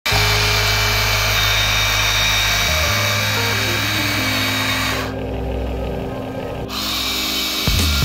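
A remote-control toy's small electric motor whirring steadily, stopping for about a second and a half just past the middle, then starting again, over background music.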